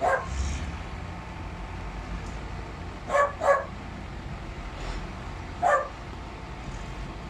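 A dog barking: once at the start, twice in quick succession about three seconds in, and once more a little before the end, over a steady low rumble.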